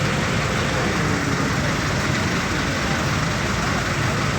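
Steady din of heavy vehicle engines and traffic as buses and trucks drive off a ship.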